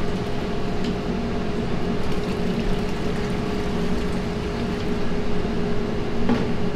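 Steady hum of kitchen machinery with a faint, even whine running through it; a light clink about six seconds in.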